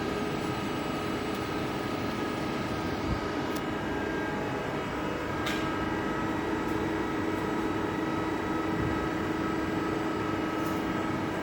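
Small CNC lathe running: a steady motor hum with a held whining tone that grows a little stronger about five seconds in, with a few faint clicks.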